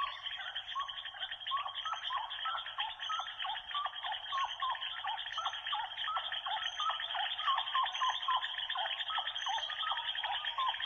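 A dense chorus of small animal calls: many short chirps falling in pitch, several a second, over a steady hiss.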